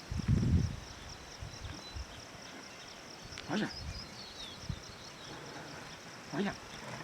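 Rural outdoor ambience with a steady, evenly pulsing high-pitched drone. Two short pitched calls come about three seconds apart, one midway and one near the end.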